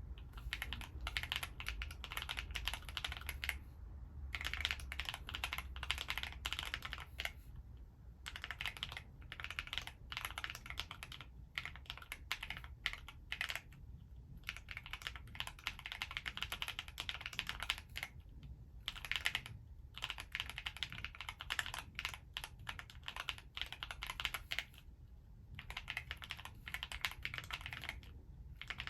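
Typing on an Alice-layout mechanical keyboard: fast runs of crisp key clicks, broken by short pauses every few seconds.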